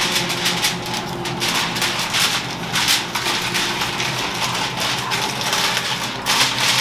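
Aluminium foil crinkling and crackling as it is folded over and crimped around the edges of a baking sheet to seal a pouch.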